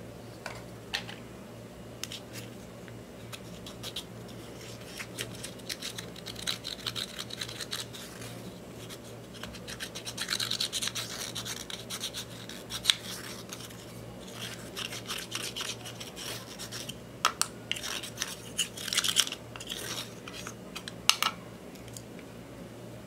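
Pressed gold eyeshadow being scraped and crumbled out of its compact pan with a small tool: bursts of dry scratching strokes, with a few sharp clicks.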